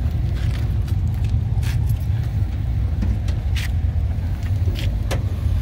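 Steady low rumble of a car on the move, with a few light clicks scattered through it.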